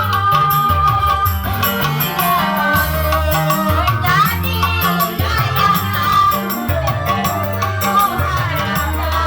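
Loud music playing, with a steady repeating bass beat under a wavering melody line.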